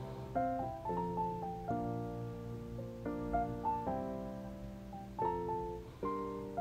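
Soft instrumental background music: sustained chords changing every second or so.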